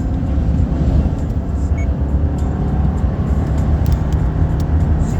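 Road and engine noise inside a moving car's cabin on the highway: a steady low rumble.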